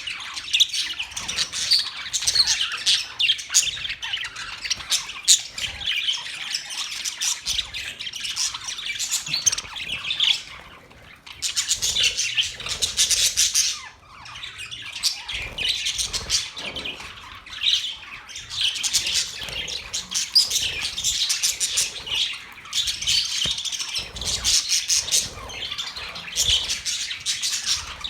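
Budgerigars chirping and chattering non-stop, many high-pitched calls overlapping, with two brief lulls partway through.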